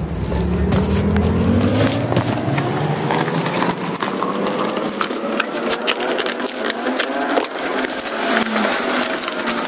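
Bubble wrap and plastic packaging crinkling and rustling as a wrapped box is handled and the wrapping is pulled off, a dense run of small crackles throughout.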